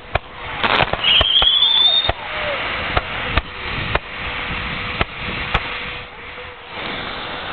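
Consumer fireworks going off: a string of sharp bangs and pops over a steady crackling hiss, with a rising whistle about a second in.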